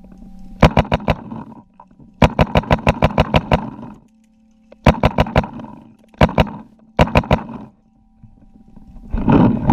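Paintball markers firing in rapid strings, several bursts of up to about a dozen shots at roughly seven a second, with a faint steady hum between bursts. A louder rush of noise comes in near the end.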